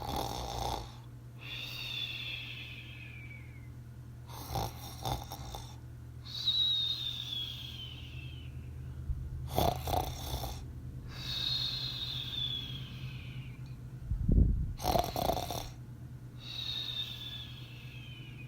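Comedic cartoon-style snoring sound effect: four cycles about five seconds apart, each a short noisy snore followed by a long falling whistle.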